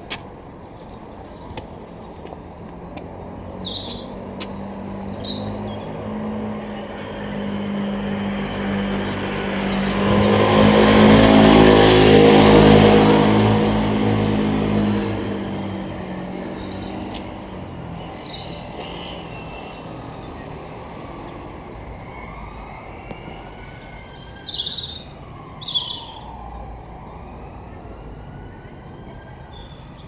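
A road vehicle drives past, its engine and tyre noise swelling to the loudest point about halfway through and then fading away. Songbirds chirp in short bursts before and after it.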